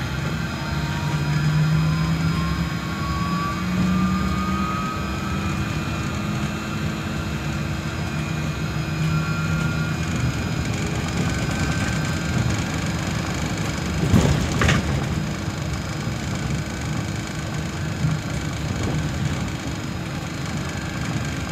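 Inside a Solaris Trolino 12 trolleybus on the move: the electric traction drive's whine rises in pitch as the bus accelerates over the first few seconds, over a steady rumble of tyres and road. About fourteen seconds in there is a brief loud jolt or rattle.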